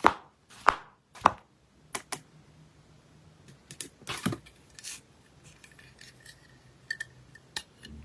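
Sharp knocks and clicks of packaging being handled during an unboxing: three loud ones in the first second and a half, a quick double click at about two seconds, then softer scattered clicks and rustles.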